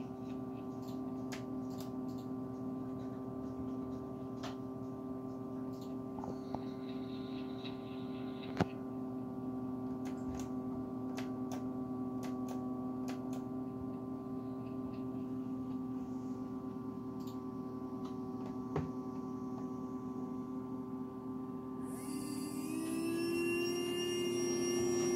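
A steady electric hum made of several held tones, with a few faint clicks. Near the end a higher whine joins in and the hum steps up a little in pitch.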